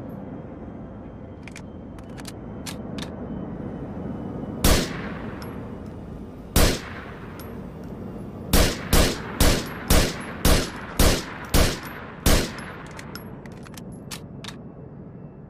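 Heckler & Koch PSG-1 semi-automatic 7.62×51mm rifle firing ten shots, each with a long echoing tail. Two shots come a couple of seconds apart, then eight follow at about two a second. Light metallic clinks sound between the shots.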